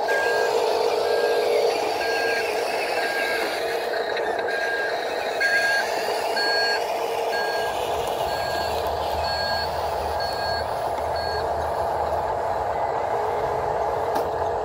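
Reversing alarm of a Huina RC dump truck backing up: even beeps about two a second, stopping after about eleven seconds, over a steady engine-like hum.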